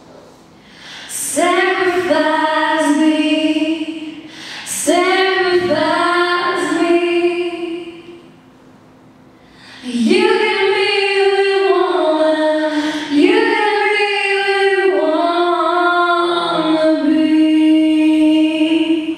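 Two young women singing a duet into microphones, in four phrases with long held notes and short pauses between them.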